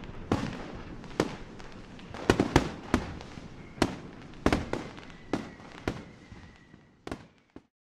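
Fireworks display: about a dozen aerial shells bursting with sharp bangs at irregular intervals over a continuous crackle, each bang trailing off in an echo. The sound cuts off suddenly near the end.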